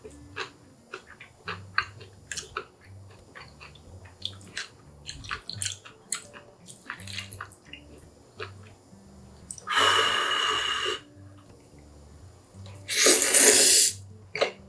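Wet chewing and mouth clicks of someone eating Chapagetti black-bean noodles with green-onion kimchi, broken by two loud slurps of noodles, each about a second long, the louder one near the end.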